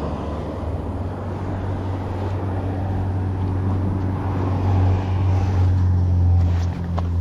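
An engine running steadily with a low hum that swells a little past the middle, with a short click near the end.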